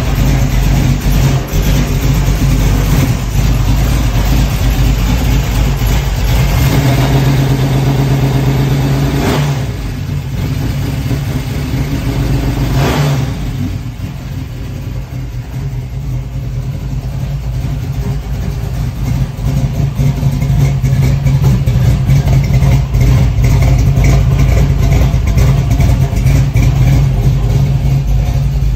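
1979 Camaro Z28's carbureted V8 engine running at idle with a steady rumble; the sound drops for a few seconds around the middle and comes back up.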